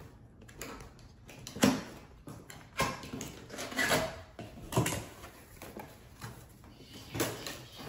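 Cardboard packaging being handled: the cardboard box of a Cricut Maker cutting machine being slid and lifted out of its printed outer carton. A series of cardboard scrapes and knocks, the sharpest about one and a half seconds in.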